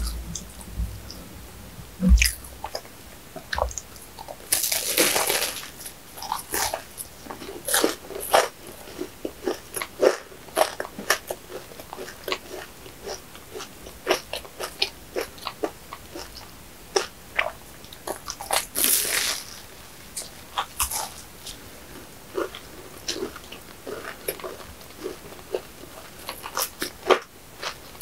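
Close-miked eating of a sugar-dusted, cream-filled flaky pastry horn: crisp crunches and crackles as the layers are bitten, with softer chewing between, and two longer crunching bites at about five and nineteen seconds in.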